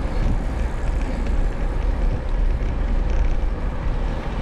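Wind rushing over the microphone of a camera riding on a moving road bicycle: a loud, steady low rumble with no separate events.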